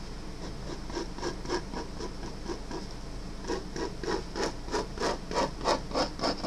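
Marker tip scratching on drawing paper in short back-and-forth sketching strokes, about three a second, going over a pencil outline to darken it. The strokes grow louder and more regular about halfway through.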